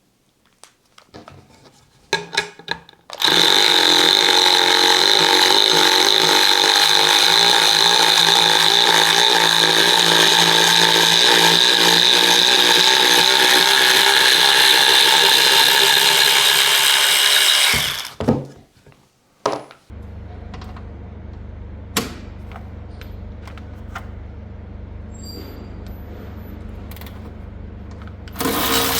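Parkside 4 V cordless ratchet's small geared motor running steadily for about fifteen seconds with a high whine, then stopping. A quieter steady low hum with a few sharp clicks follows, and the motor starts again briefly near the end.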